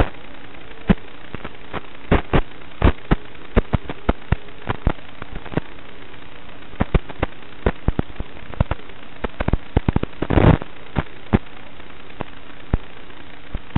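Static hiss from an analog FPV video receiver's audio channel, broken by irregular sharp crackles and pops, with a longer crackly burst about ten seconds in. The crackles come with dropouts and interference in the radio link.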